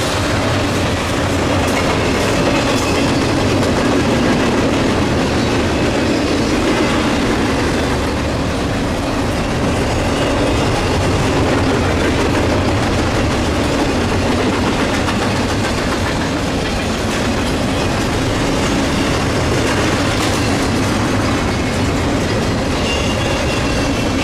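Norfolk Southern freight train's cars rolling past at steady speed: a continuous rumble of steel wheels on the rails with clickety-clack over the rail joints.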